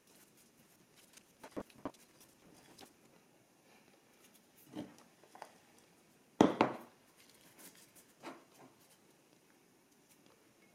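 A few scattered light knocks and taps, as of things being handled on a kitchen counter, against quiet room tone. The loudest is a sharper knock about six and a half seconds in.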